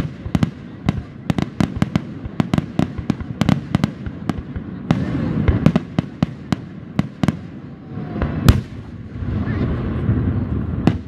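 Fireworks going off: a rapid, irregular string of sharp pops and bangs for about seven seconds, then the loudest single bang about eight and a half seconds in.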